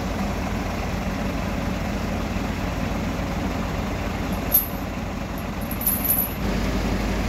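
Diesel engines idling with a steady low drone: a Hyundai HG170 motor grader close by, and a dump truck whose engine has just been started. Brief sharp sounds come about four and a half and six seconds in.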